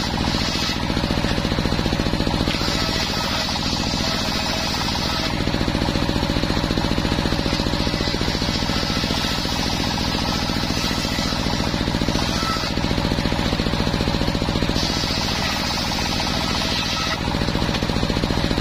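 Homemade engine-driven circular saw bench ripping planks of waru wood. The engine runs steadily with a fast, even pulse. The blade's cutting noise comes and goes several times as boards are fed through one after another.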